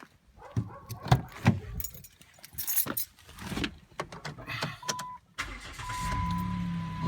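A few knocks and clicks, then about five seconds in the 2008 Chrysler Town & Country's 3.3-litre V6 starts and settles into a steady idle, with a steady high tone alongside. This is the first start after replacing the tensioner idler pulley with the worn bearings, a test of whether the belt squeal is gone.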